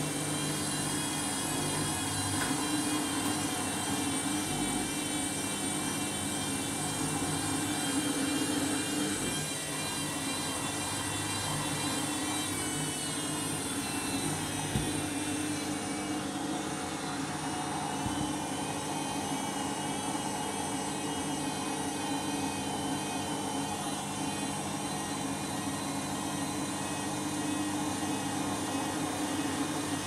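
Candy Grand'O Vita 7 kg front-loading washing machine spinning its drum at speed, the load running fairly balanced: a steady motor whine, slightly wavering in pitch, over a constant rushing hum.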